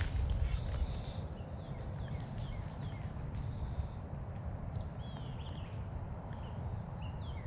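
Wild birds chirping, with many short, quick calls and falling notes, over a steady low rumble of wind on the microphone.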